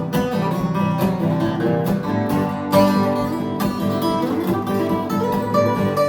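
Acoustic guitar strumming chords in a steady rhythm, an instrumental passage of a song.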